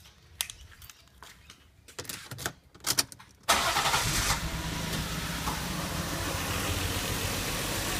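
A few clicks and rattles of the key going into the ignition. About three and a half seconds in, the Lexus IS 200's 1G-FE straight-six starts with a brief flare, then settles into a steady idle. The owner later finds cylinder one misfiring from a faulty coil pack.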